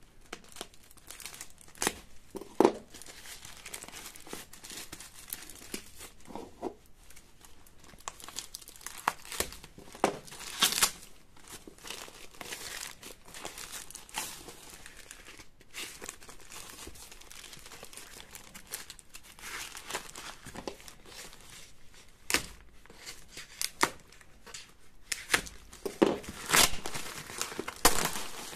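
Black plastic mailer bag and its packing tape being torn open and crinkled by hand: irregular crinkling with several louder rips, the biggest about a tenth, a third and nine-tenths of the way through.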